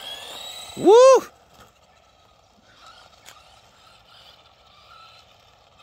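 A man gives one loud whoop about a second in. Under it and after it, the Carson Mega Duster 1:10 electric RC monster truck's motor whines faintly, rising as the truck accelerates away across asphalt.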